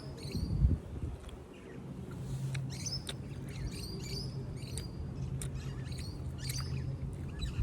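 Small songbirds chirping: short, high calls scattered throughout, over a low steady hum that sets in about two seconds in. A thump sounds near the start.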